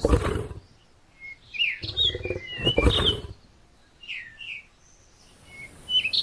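Small birds chirping and twittering, short rising and falling notes again and again. Two loud, harsh, rough sounds cover them: one right at the start and a longer one around two to three seconds in.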